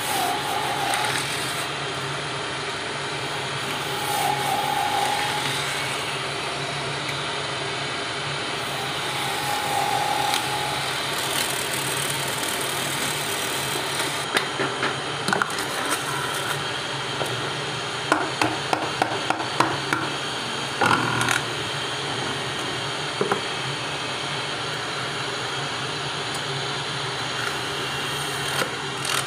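Bangle-cutting lathe running steadily while a hand-held flat blade shaves and parts a spinning red plastic tube into bangle rings. A few short squeals come in the first ten seconds, and a run of sharp clicks and knocks comes about halfway through.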